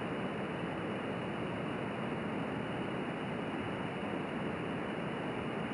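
Steady hiss of a BS 1.0 jet alcohol stove burning methanol under a stainless steel mug of water being heated toward a boil.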